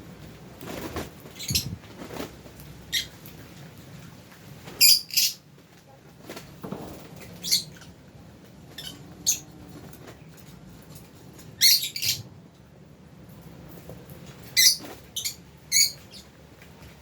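Lovebirds giving short, sharp, high-pitched chirps and squeaks, about a dozen scattered at irregular intervals, the loudest about five seconds in and again around twelve and fifteen seconds.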